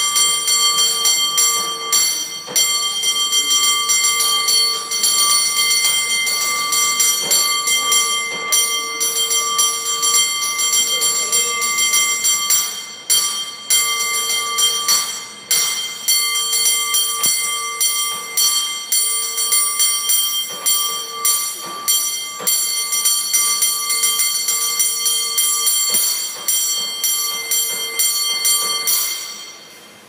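San Francisco cable car bell rung in a fast, rhythmic contest routine, many quick strikes in changing patterns, ringing on between strokes. The ringing stops about a second before the end.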